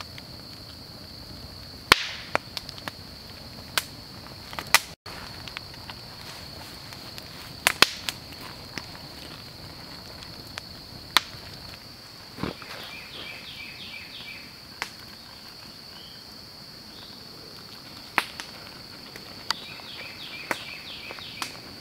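Wood campfire crackling, with scattered sharp pops at uneven intervals, over a steady high insect drone.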